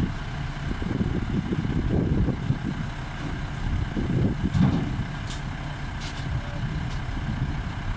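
Heavy vehicle's engine running with a low, uneven rumble.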